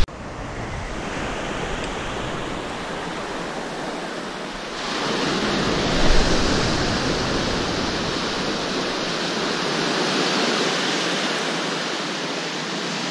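Ocean surf: a steady rush of waves, growing louder about five seconds in.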